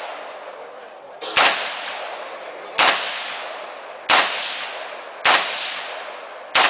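Five single gunshots from a firearm being fired at a slow, even pace, about one every 1.3 seconds. Each shot leaves a ringing echo tail that fades before the next.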